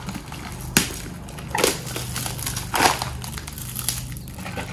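Boxed milk carton being handled while a child drinks from it: a sharp click about a second in, then two short crunching, crinkling rustles a little over a second apart.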